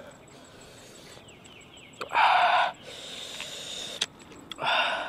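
Two loud, sharp breaths drawn in hissing through the mouth, about two seconds in and again near the end, as from the burn of chilli while eating a spicy salad.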